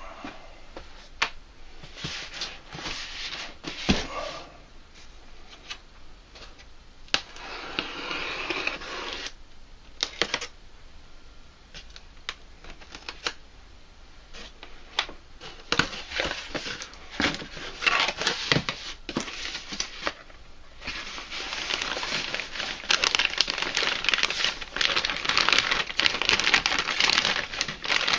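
Unboxing handling noise: a cardboard box being opened and handled, with scattered clicks, knocks and short rustles, then plastic bags crinkling almost continuously for the last several seconds as tools wrapped in clear plastic are lifted out.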